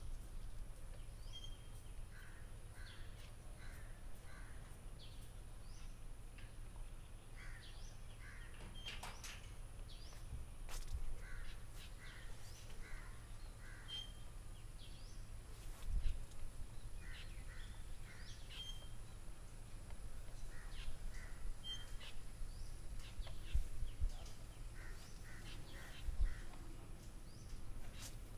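Birds calling repeatedly in short notes, in little runs of several, over a steady low rumble with a few soft low thumps.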